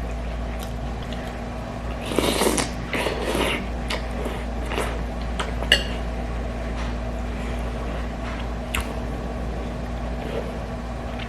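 Someone eating a bowl of gukbap (Korean rice soup): a noisy stretch of eating sounds about two seconds in, then a few sharp clinks of a spoon against the bowl, over a steady low hum.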